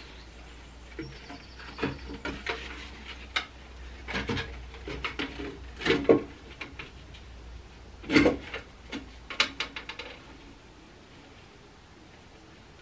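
Metal tool and engine-part handling on a tractor engine: scattered clanks, knocks and scrapes, the loudest knocks about six and eight seconds in, dying away to quieter handling after about ten seconds.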